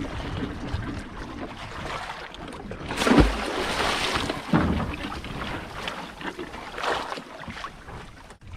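Water sloshing and splashing around a small boat at sea, with wind on the microphone; a louder splash comes about three seconds in.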